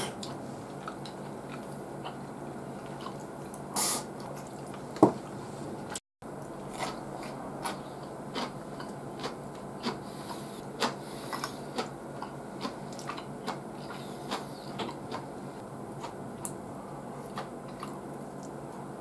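Close-miked chewing and small mouth clicks of a person eating grilled hokke and rice, with scattered light ticks of chopsticks against dishes. A single sharp click stands out about five seconds in, and the sound cuts out for a moment around six seconds.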